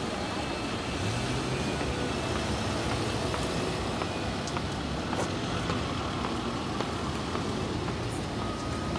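Steady street traffic noise, with the low hum of vehicle engines.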